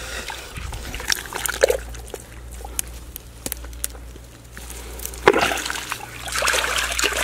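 Hands groping in a shallow hole of muddy water, sloshing and splashing in irregular bursts, with a sharp splash about five seconds in and a longer stretch of sloshing near the end.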